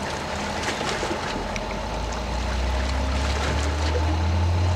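Large car ferry's engines running as it pulls away, a steady low drone that grows louder about a second and a half in, over a hiss of water and wind.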